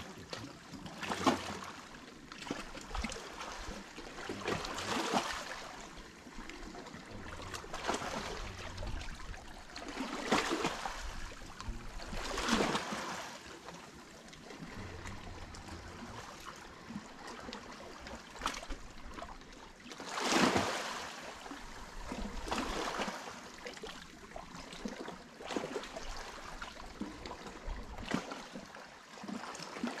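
Small sea waves washing onto the shore, each wash swelling into a hiss and fading, irregularly every few seconds.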